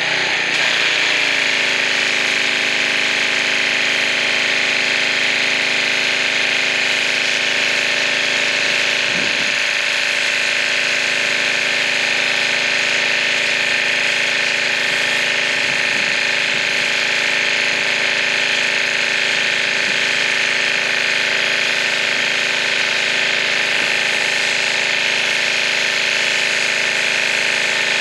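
Pressure washer running steadily, a motor hum under the hiss of the water jet spraying grime off a camper's rear wall.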